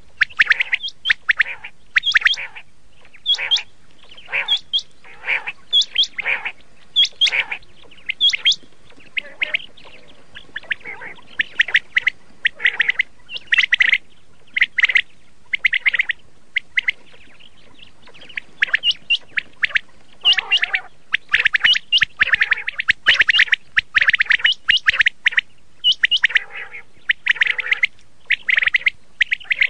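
Quail calling: short, sharp, high calls repeated in quick irregular series, with a pause of a few seconds just past the middle.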